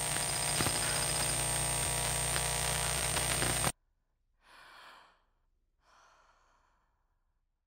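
Steady hissing, rushing noise with a thin high whine, cutting off abruptly a little under four seconds in. After it come two faint, short breath-like exhalations about a second apart.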